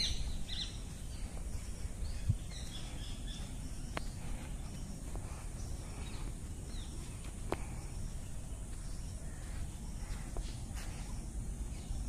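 Wild birds calling now and then with short high chirps, over a steady low rumble of open-air background noise.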